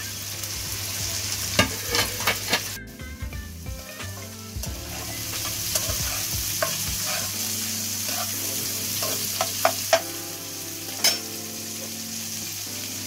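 Chopped vegetables stir-frying in hot oil in a nonstick wok: a steady sizzle, with a spatula clicking and scraping against the pan a few times, around two seconds in and again near ten to eleven seconds.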